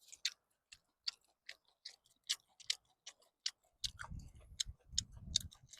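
A person chewing a big mouthful of stir-fried beef and dried tofu: irregular wet mouth clicks and lip smacks, a few a second, with low muffled chewing sounds from about four seconds in.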